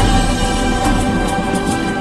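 Cinematic background music: sustained held tones over a steady deep bass.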